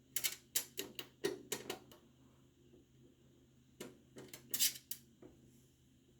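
Sharp clicks and light clinks of small hard objects being handled: a quick run of about eight in the first two seconds, then a second, shorter run near the middle.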